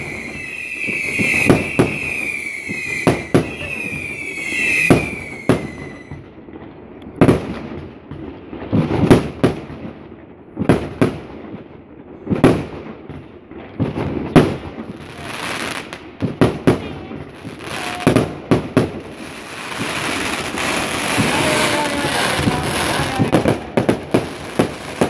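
Consumer fireworks firing in a sequence. For the first six seconds there are repeated falling whistles mixed with bangs. Then comes a run of sharp bangs every second or two, and near the end a dense crackling from many small bursts at once.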